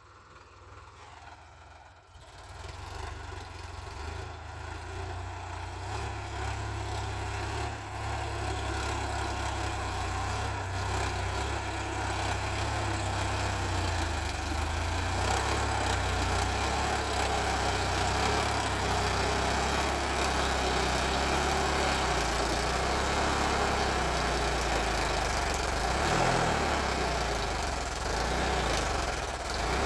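Sonalika DI 745 Sikander tractor's diesel engine running under load while levelling soil, growing louder over the first few seconds as the tractor comes closer and then holding a steady drone.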